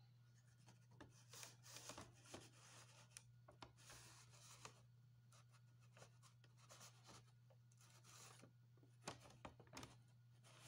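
Near silence: faint, scattered rustling and rubbing over a steady low hum.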